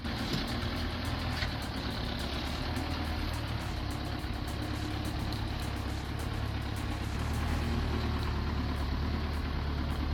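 Heavy vehicle engine running steadily, with a strong low, even hum and a constant noise above it.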